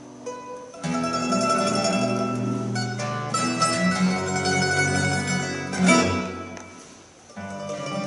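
Live mandolin, classical guitar and double bass trio playing an instrumental tune. The music starts soft, the ensemble comes in loudly about a second in, there is a sharp accent near six seconds, and it drops away briefly before picking up again near the end.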